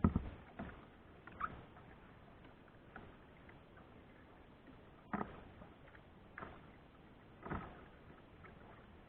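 Kayak paddling: separate splashes and knocks, strongest at the start and then roughly every one to two seconds, over a faint steady hiss.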